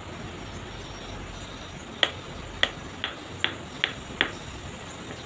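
Six light taps of a hammer on a river stone, driving it into a wet cement bed to set it, coming a little faster toward the end.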